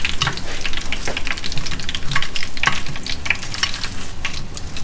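Hot oil deep-frying breaded shrimp skewers, a steady sizzle full of irregular sharp crackles and pops.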